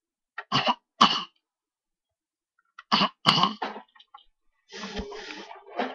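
A child coughing in two pairs of short, sharp coughs, the first pair about half a second in and the second about three seconds in, followed near the end by a second or so of softer, noisier sound.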